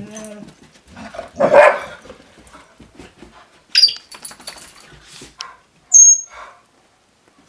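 Mixed-breed puppies barking and growling in play, with two sharp, high, whistle-like squawks from African grey parrots, the louder near the end.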